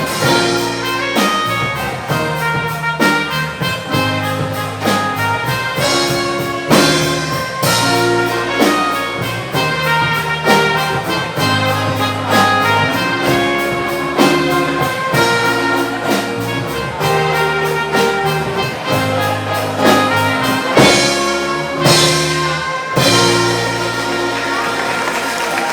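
Live band playing a brass-led instrumental passage, trumpet and trombone carrying the tune over a steady drum beat.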